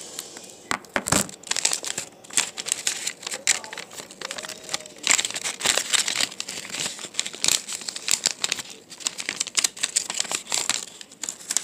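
Sheet of paper being folded and crumpled by hand, crackling and rustling irregularly throughout.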